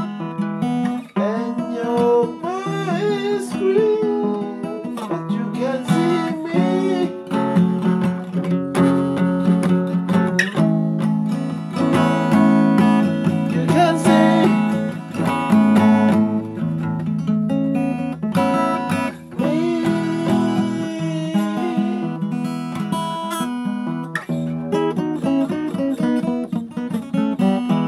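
Song with acoustic guitar: strummed chords under a picked guitar line with bending notes, in an instrumental passage without words.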